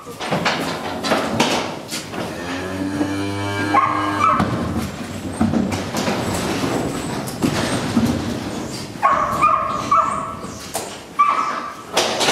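Cattle being loaded up a metal ramp into a livestock lorry: repeated knocks and clatters, with one long, low moo at about two and a half seconds in and short high-pitched calls in clusters later on.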